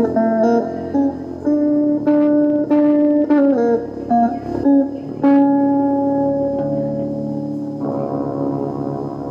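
Live instrumental music led by a guitar: a run of plucked notes, then a long held note about five seconds in, over a low sustained tone.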